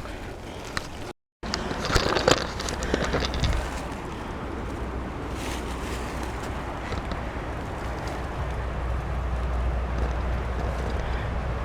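Wind buffeting the microphone as a steady low rumble, with a brief spell of crackling and rustling about two seconds in.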